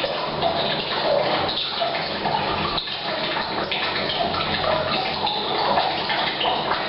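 Water from a supply pipe pouring steadily into a tank, mixed with rain falling on the roof, with a hollow ring off the bathroom's hard walls.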